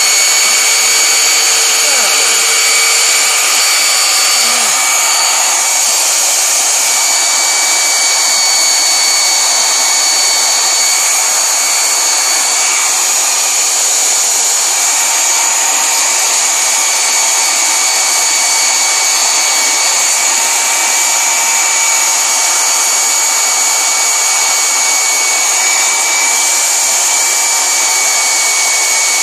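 Tacklife variable-speed belt sander running steadily at its top speed setting, 6. Motor and belt make a loud, even whine with several steady high tones.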